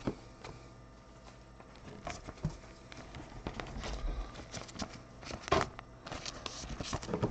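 Trading cards and a clear plastic card sleeve handled by gloved hands: faint rustling and soft clicks, with one sharper click about five and a half seconds in.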